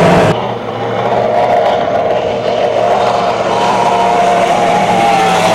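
Racing catamaran powerboat's engine running flat out as the boat speeds past, a steady drone that wavers and rises slightly in pitch midway.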